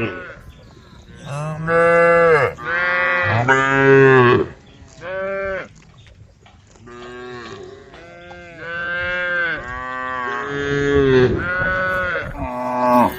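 Cows mooing again and again: about ten drawn-out calls, a half-second to a second each, some running into one another.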